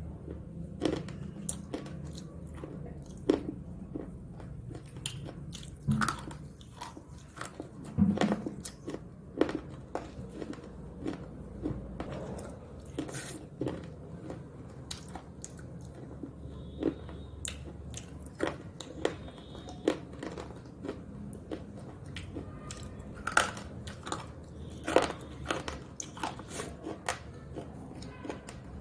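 Crunchy snack sticks being bitten and chewed close to the microphone: sharp, irregular crunches every second or so, over a low steady background hum.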